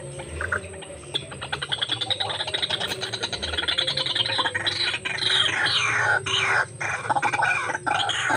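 White-breasted waterhens (ruak-ruak) calling: a fast run of pulsing croaks that builds up over the first few seconds, then louder repeated calls with brief breaks.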